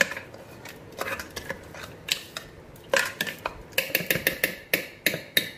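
Steel mixer-grinder jar and its lid being handled after grinding: scattered metallic clinks and knocks, with a quick run of sharp taps near the end. The grinder motor is not running.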